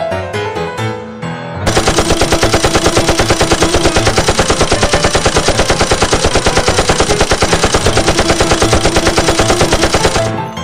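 Piano music plays briefly, then about two seconds in a loud machine-gun sound effect breaks in. It fires a long, rapid, even stream of automatic shots for about eight seconds, then cuts off suddenly near the end as the piano returns.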